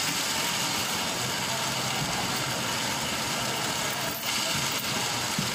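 Electric blender motor running steadily at speed, a continuous whirring noise.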